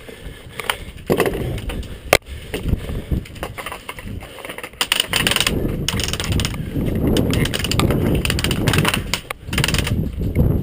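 Rustling, scuffing and clattering of an airsoft player moving with gear, with a sharp click about two seconds in and denser clatter from about five seconds in.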